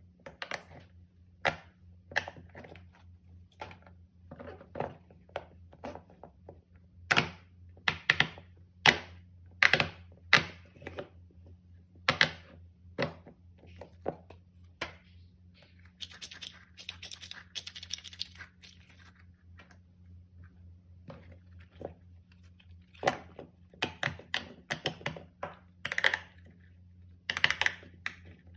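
Silicone pop-it fidget toy bubbles pressed and popping: sharp irregular pops, some in quick runs. About halfway through there is a few seconds of rubbing noise as the silicone toy is handled and slid on the table.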